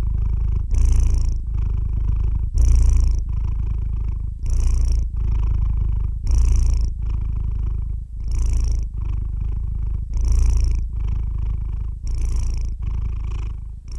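Domestic cat purring steadily, a low rumble that swells and eases with its breathing, about one breath cycle every two seconds.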